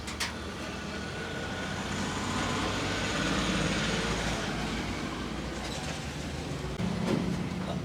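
Roadside traffic noise: a vehicle passing, its sound swelling over a couple of seconds and then falling away, over a steady low engine hum. A sharp click comes just after the start.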